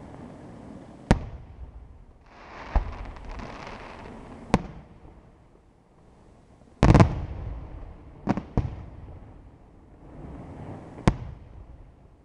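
Aerial firework shells bursting in a night display: seven sharp bangs, the loudest about seven seconds in, with two close together soon after. A rushing hiss and low rumble linger between the bangs.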